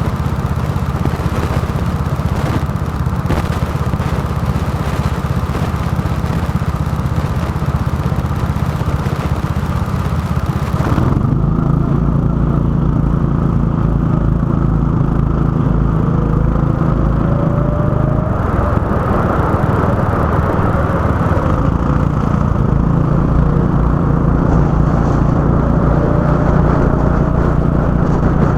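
Go-kart engine running on track, steady and loud. For about the first ten seconds there is a heavy rushing hiss over it. The hiss cuts off suddenly, leaving a strong low engine hum that rises in pitch a couple of times as the kart accelerates.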